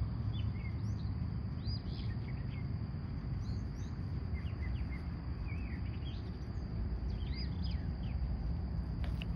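Small birds chirping: many short, quick calls over a steady low rumble.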